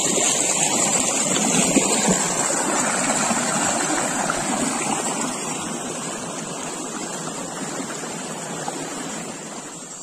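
Small mountain stream rushing over rocks, fading steadily as it is left behind, with a steady high-pitched chorus of insects.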